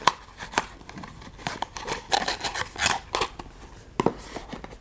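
Small cardboard gift box and a fabric pouch being handled: rustling with several sharp taps and clicks of card, one near the end as the box is set back into the calendar tray.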